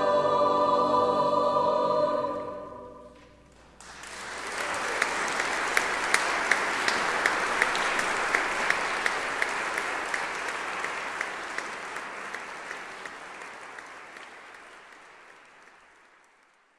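A choir holds the final chord of a sacred choral piece, which dies away about three seconds in. After a brief hush, the concert audience breaks into applause, with one sharper clap standing out about twice a second. The applause gradually fades out near the end.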